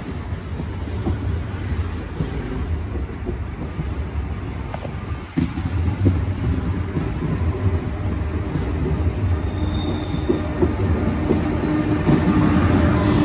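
Renfe AVE high-speed train with Talgo coaches passing close by at low speed: a steady rolling rumble of wheels on rail with scattered clicks, growing louder towards the end as the rear power car goes by.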